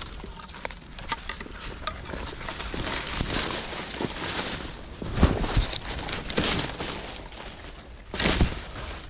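Footsteps crunching through dry leaves and brush, with crackling twigs and rustling, irregular throughout. Two louder bursts come about five and eight seconds in.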